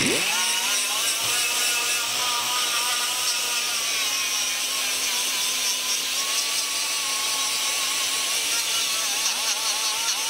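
Pneumatic die grinder spinning up, then running steadily with a whine and a hiss of air, its pitch dipping slightly as it is pressed onto a brake rotor's mounting hub to clean off rust and dirt.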